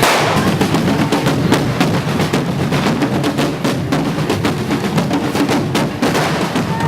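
Correfoc street drums playing a fast, steady beat, with a dense run of sharp crackling bangs from handheld fireworks going off over it.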